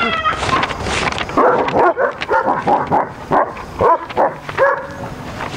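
Dogs barking and yipping in a quick run of short, sharp calls, about three a second.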